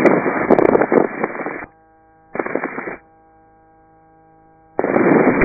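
Helicopter headset intercom carrying a hiss of cabin noise, with nothing above the intercom's narrow band. It cuts out about a second and a half in, comes back briefly, then drops to a steady electrical hum for nearly two seconds before the noise returns near the end, as the intercom mic switches off and on.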